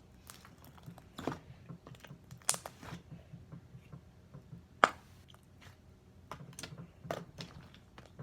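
Slime being squeezed and poked by hand, giving irregular sticky clicks and crackles with a few sharper pops.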